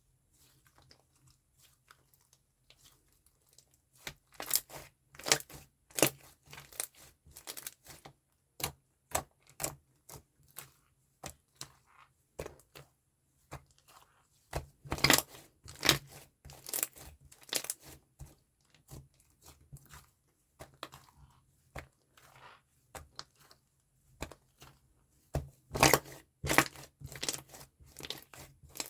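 Slime being squished and pressed by hand, giving irregular sharp pops and crackles in dense clusters after a quiet first few seconds.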